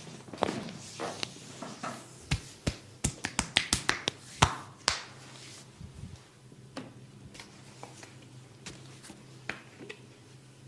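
Massaging hands making a quick run of sharp slaps and snaps, about a dozen in under three seconds, starting about two seconds in, then only occasional light taps.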